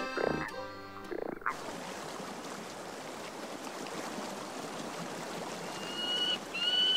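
Steady rush of a flowing stream. About a second and a half in, a pitched, tuneful calling sound cuts off, and near the end a few high, steady whistled notes repeat.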